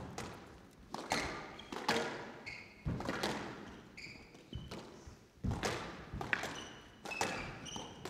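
Squash rally: the ball hit by rackets and striking the walls about once a second, each hit ringing briefly in the hall, with short sharp squeaks of court shoes on the floor in between.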